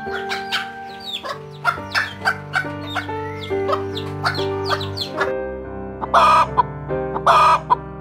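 Chickens: chicks peeping rapidly with short, falling chirps and hens clucking, then two loud, harsh chicken calls about six and seven seconds in, over background music.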